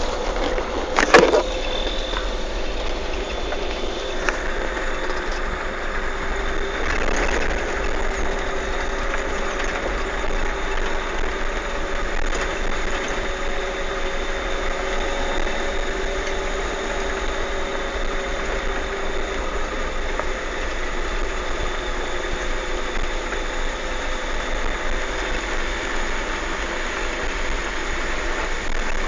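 Car engine and low road rumble heard from inside the cabin as the car drives slowly along a dirt track, running steadily throughout. A few sharp knocks come about a second in.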